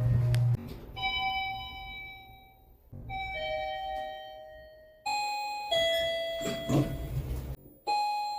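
Elevator arrival chimes from different lifts, four in turn, mostly two-note dings that fall in pitch and ring out. A short clatter comes between the third and fourth chime.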